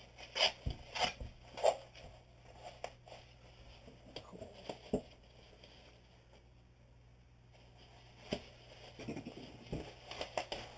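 Rustling, crinkling and scraping of a soft body-armour panel and its stiff cover as they are handled and turned over on a table. Quick bursts come in the first two seconds and again near the end, with fewer, scattered rustles in between.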